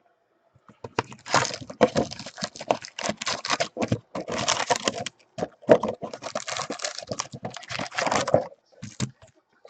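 Crinkly plastic wrapping of a sealed trading-card box or pack being torn open and handled: dense crackling and tearing that starts about a second in and runs for several seconds, with a couple of short crinkles near the end.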